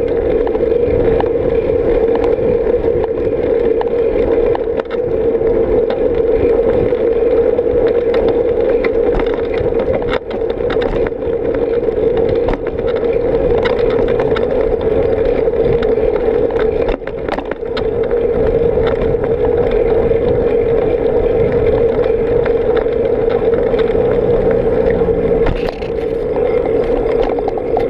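Bicycle rolling along an asphalt bike path, heard from a bike-mounted action camera: a steady drone of tyres and riding noise, with scattered knocks and rattles from bumps in the pavement. A heavier vehicle's engine hums low on the road alongside near the end.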